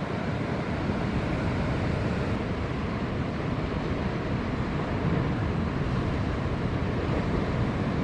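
Ocean surf breaking, a steady rushing noise, mixed with wind on the microphone.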